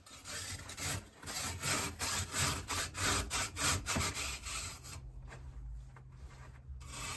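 Craftsman handsaw cutting through a soft insulating firebrick (IFB 2300): quick rasping back-and-forth strokes, pausing about five seconds in and starting again near the end.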